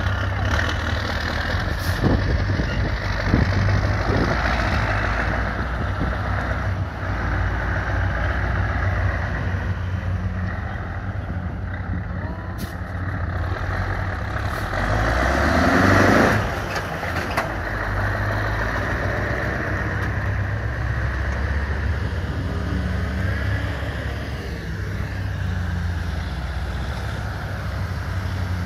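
Heavy six-wheel military trucks' engines labouring off-road through mud. The Scania V8 diesel runs steadily under load and revs up hard about halfway through. Later a Ural truck's engine works through the water.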